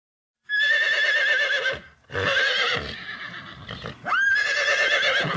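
A horse whinnying in three calls, each with a quavering, wavering pitch; the third starts with a sharp upward sweep.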